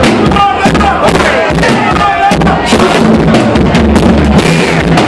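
Live rock band playing loudly: a drum kit keeping a steady beat with electric guitar and bass, and a man singing over it.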